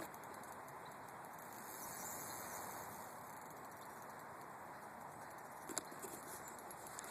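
Faint steady hiss of outdoor ambient noise, with a couple of faint short clicks about six seconds in.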